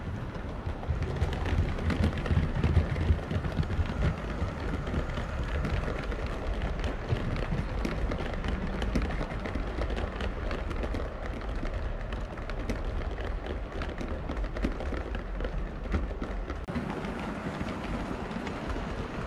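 7mm-scale (O gauge) model steam locomotives and coaches running along the layout's track. A low rumble is laced with many irregular small clicks as the wheels pass over rail joints and pointwork, loudest a couple of seconds in.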